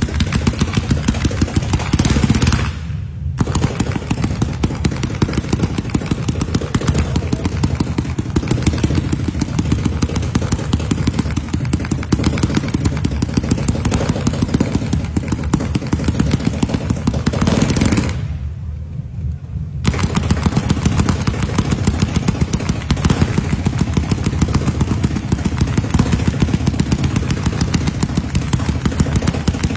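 Fireworks firing in rapid, continuous succession: a dense run of launch thumps, bangs and crackling bursts like machine-gun fire. It drops off briefly twice, about three seconds in and again around eighteen seconds in, then resumes.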